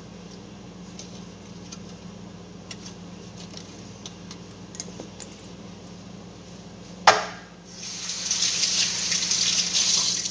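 A sharp knock with a short ring about seven seconds in, then water running from a kitchen tap for the last two seconds or so, growing slightly louder.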